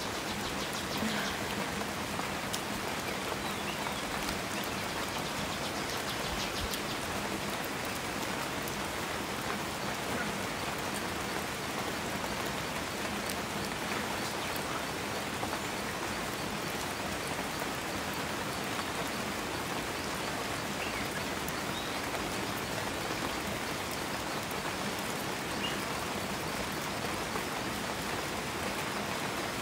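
A steady, even rush of water noise, unbroken throughout.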